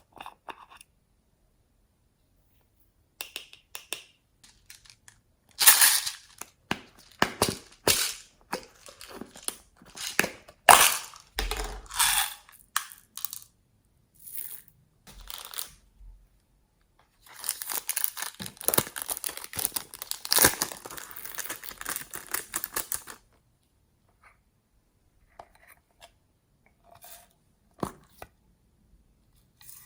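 Glossy slime being squished, poked and stretched by hand: irregular sticky clicks and pops, with a dense run of fast crackling lasting several seconds about two-thirds of the way through.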